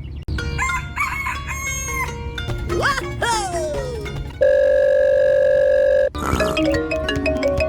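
Music with cartoon-style sound effects: short pitched notes, a quick rising-then-falling glide call, then a steady beep-like tone held for about a second and a half, cut off sharply and followed by a run of short plucked notes.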